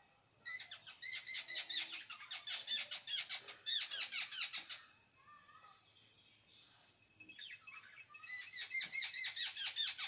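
Jungle babbler chattering: a rapid run of repeated call notes for about four seconds, a few fainter calls, then another fast burst near the end.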